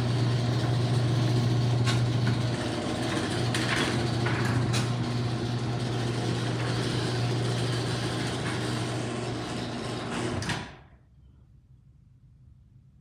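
Garage door opener motor running a sectional garage door through its travel: a steady low hum with the door's rattle and a few sharp clicks, which cuts off suddenly about two seconds before the end as the opener stops.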